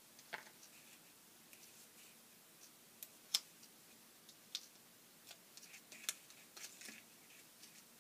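Faint, scattered clicks and light paper rustles from hands handling a small die-cut cardstock piece while peeling and applying foam adhesive dimensionals to its back. The sharpest click comes about three and a half seconds in.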